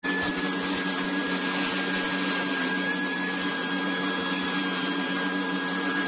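Voroly 5000 Pa 12 V handheld car vacuum cleaner running, its crevice nozzle drawn over car floor carpet to suck up dust: a steady motor whine over the rush of air.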